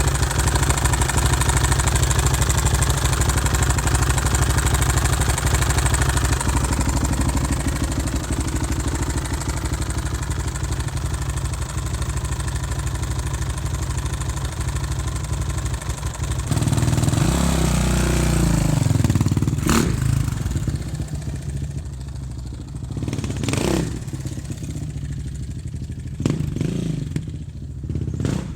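Suzuki RM-Z450 four-stroke single-cylinder dirt bike engine running, with the knocking noise that the title calls rod knock and that the seller passed off as normal for that year's Suzuki. About 17 s in it is revved, rising and falling in pitch. The engine sound then drops back, broken by a few sharp pops.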